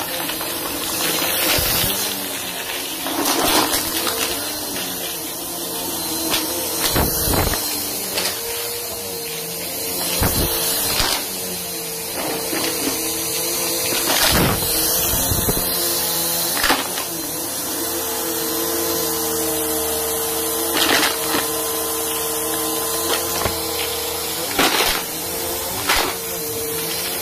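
Vacuum cleaner running steadily on carpet, its motor giving a constant whine, with irregular sharp crunches and rattles as hard debris scattered on the carpet is sucked up.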